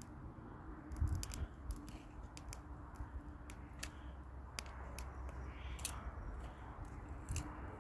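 Dry twigs being snapped by hand for kindling: a scatter of sharp, irregular cracks over a faint steady low rumble.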